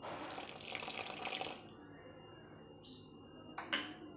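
Water poured into a steel bowl of sattu flour, a short hissing pour of about a second and a half, followed by a few faint clicks.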